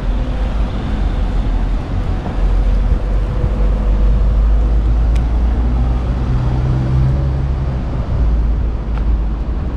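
Low, steady rumble of street traffic.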